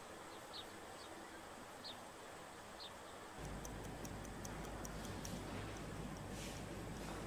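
Faint short chirps, then, from about three and a half seconds in, a wall clock ticking at about four ticks a second over a low steady hum.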